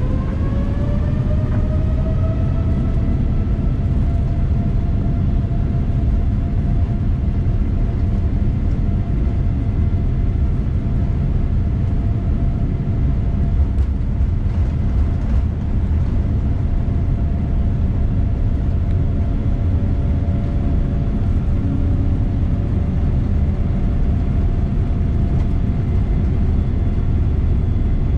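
Boeing 787's Rolls-Royce Trent 1000 engine heard from inside the cabin while taxiing: its whine rises in pitch over the first few seconds, then holds steady over a deep, constant cabin rumble.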